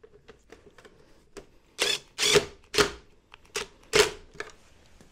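Cordless drill-driver run in five short bursts on the screws of a scooter's handlebar cover, after a few faint ticks.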